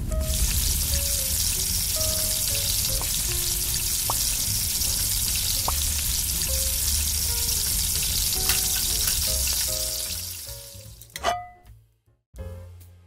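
Pan-frying sizzle: a steady hiss of food frying in hot oil, under light background music. The sizzle fades out near the end, and a single sharp click follows.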